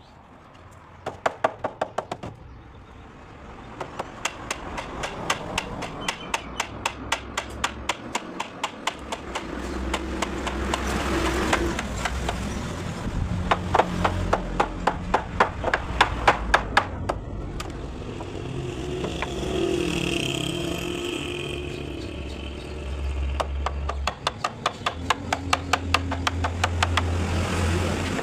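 Runs of rapid, evenly spaced sharp knocks, several a second, over a low steady hum.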